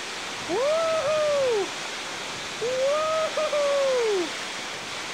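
A man whooping twice under a waterfall, two long calls that each rise and then fall in pitch, over the steady rush of the falling water.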